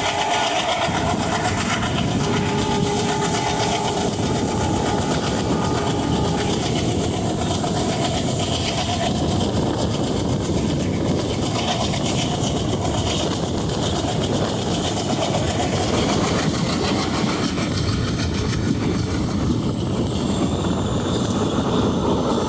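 Train running along the track: a steady, loud noise of wheels on rail with a dense clatter and no break. A faint high whine runs through it for a few seconds near the end, falling slightly in pitch.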